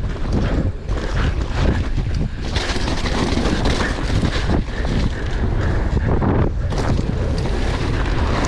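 Wind buffeting the rider's camera microphone at speed on a downhill mountain bike, mixed with tyres running over wet, loose dirt and the bike knocking and rattling over bumps.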